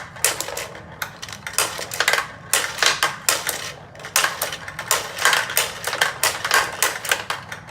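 Crossfire game's plastic trigger shooters firing metal marbles, a fast, irregular run of clicks and clatters as the marbles rattle around the plastic board and pucks.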